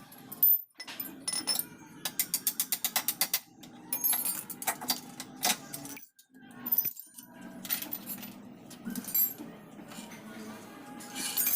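Metal hand tools clinking and knocking against motorcycle engine parts during a teardown, with a quick even run of about a dozen ratchet-like clicks about two seconds in.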